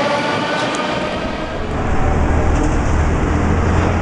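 A Moscow Metro train pulling out of the station, its traction motors giving a slightly rising whine that fades away within the first second. About two seconds in, this gives way to a steady low rumble of street traffic.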